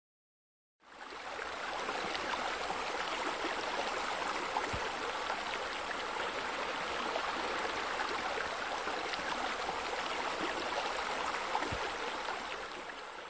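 Steady rushing of running water, fading in about a second in and fading out at the end.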